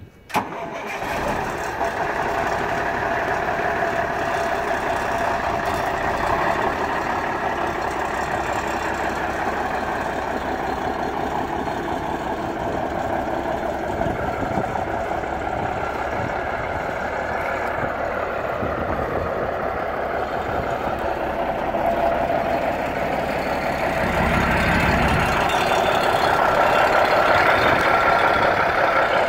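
The diesel engine of a 1991 Freightliner FLD120 semi tractor starts about half a second in and then idles steadily, getting somewhat louder near the end.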